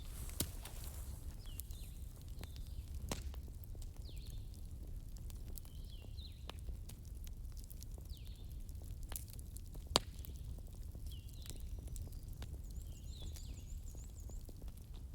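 Wood fire crackling: scattered sharp snaps and pops over a steady low rumble, with one much louder pop about ten seconds in.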